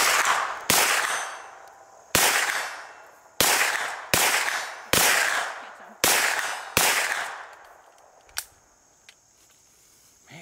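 AR-15 semi-automatic rifle fired about eight single shots at an uneven pace, each sharp crack trailing off in a long echo. The shots are fired to check the sight's zero, which the shooter finds is off.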